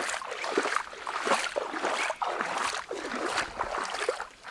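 Footsteps wading through shallow floodwater, a splash and slosh with each step, about one step every half second or so.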